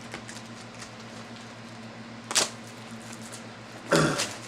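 Handling of a sealed box of trading cards being opened: scattered small clicks and rustles, a sharp crackle about two and a half seconds in and a louder one near the end, over a steady low hum.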